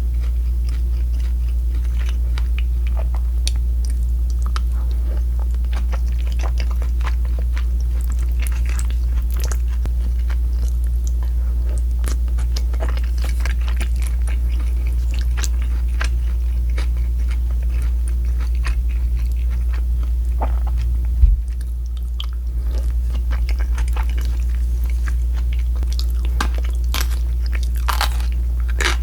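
Close-miked eating: chewing and crunching with many small crackles, over a steady low hum. A single sharp thump comes about 21 seconds in.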